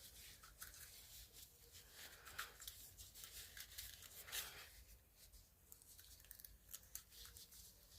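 Near silence with faint, scattered scraping and clicking handling noises from working at a stuck part inside an old flashlight head.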